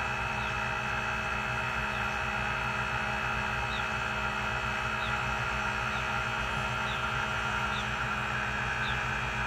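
On-board air compressor running steadily, a constant hum, pumping up the rear air helper springs toward the 50 psi just set on the remote.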